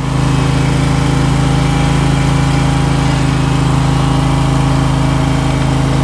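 Electric pump on a spot-sprayer tank running with a loud, steady hum and hiss, recirculating the spray mix to keep it agitated.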